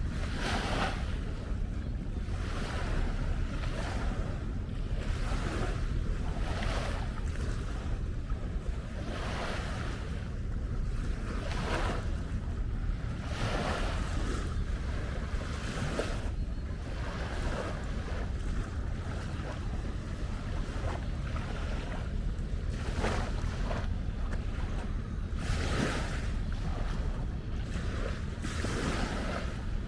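Wind buffeting the microphone: a steady low rumble with irregular brief swells of hiss every second or two.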